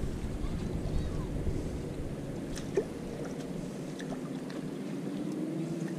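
Wind rumbling on the microphone, easing about halfway through, with a few faint clicks from a spinning reel being cranked to retrieve a lure. A faint steady hum comes in during the second half.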